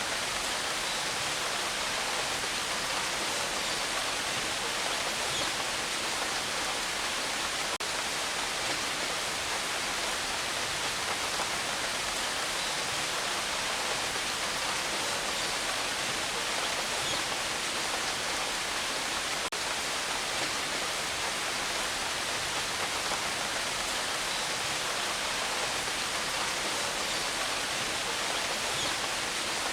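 Rain falling steadily: an even, unbroken hiss with no thunder.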